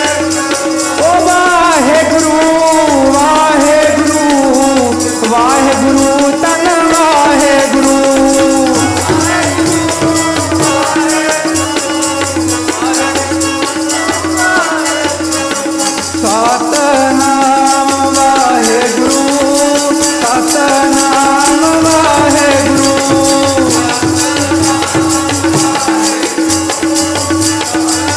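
Sikh kirtan: a voice singing a devotional shabad in long rising and falling phrases over a steady harmonium drone, with a fast, even chimta jingle rhythm.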